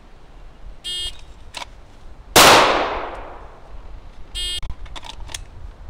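An electronic shot timer beeps, and about a second and a half later a Glock 19 9 mm pistol fires a single shot, which rings out and fades over more than a second. A second, similar beep follows about two seconds later, then a few light clicks.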